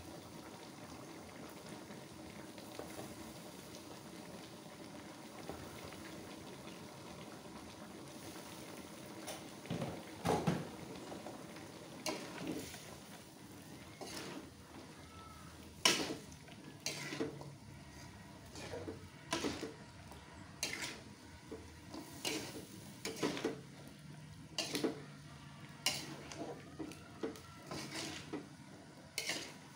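Metal spatula scraping and knocking against a wok as mixed vegetables are stir-fried, over a steady sizzle of frying. The spatula strokes start about a third of the way in and come roughly once a second.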